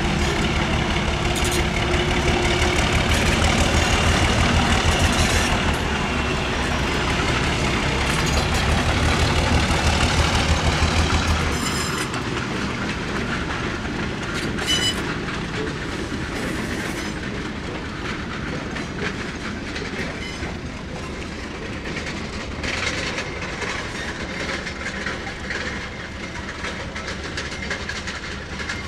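Diesel locomotive passing under heavy throttle, its engine loud for about the first twelve seconds; then the engine noise falls away quite suddenly and the train's cars roll by with wheels clicking over the rail joints.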